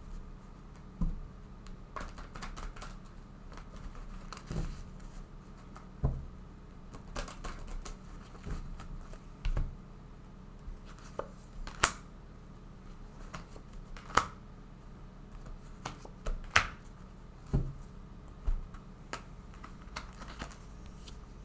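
Tarot cards being handled, shuffled and drawn from the deck, giving scattered light clicks and snaps every second or two.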